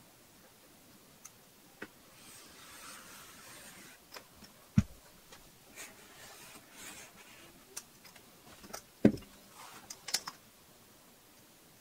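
Hand-tool work on leather laid over a cutting mat: a metal stylus scratching a line into the leather along a steel ruler, with scattered light clicks of the ruler and tools. Two sharp knocks, about five and nine seconds in, are the loudest sounds.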